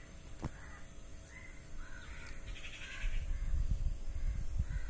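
Crows cawing several times in the background. There is a sharp click about half a second in, and a low rumble grows louder from about three seconds in.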